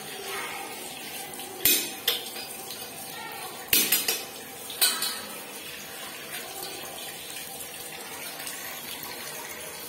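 Tap water running steadily into a ceramic washbasin, with several sharp metallic clinks of a small metal object knocking against the basin: two near two seconds in, two around four seconds, and one near five seconds.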